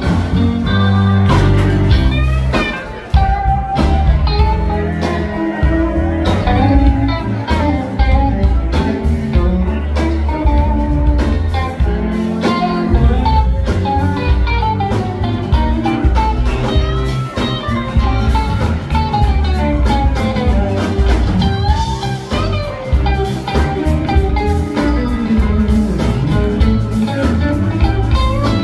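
Live rock band playing: electric guitars, bass and drums, with an electric guitar carrying the melody in a mostly instrumental stretch.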